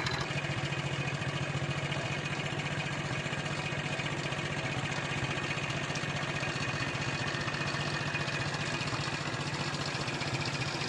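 A small engine idling steadily, with a fast even pulse that does not change.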